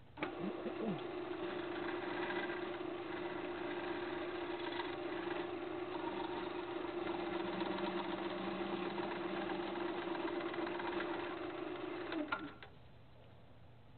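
Wood lathe motor running with a steady hum while a gouge cuts a spinning apple-wood blank, throwing shavings. Near the end there is a click and the hum drops away as the lathe is switched off.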